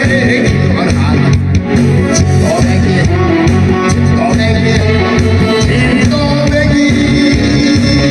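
Korean trot song played from a backing track with a steady beat, a man singing along into a handheld microphone.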